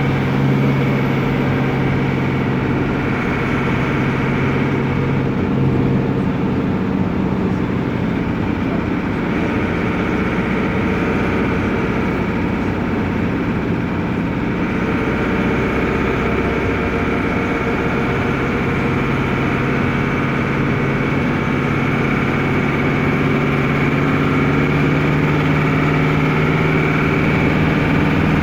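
Otokar M-2000 minibus's air-cooled Deutz F4L912 four-cylinder diesel running under way, loud inside the cabin. The engine note dips about five to six seconds in, then climbs slowly through the second half as it pulls.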